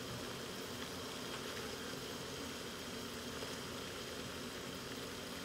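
Chorizo sizzling faintly in a frying pan, a steady low hiss with no distinct pops.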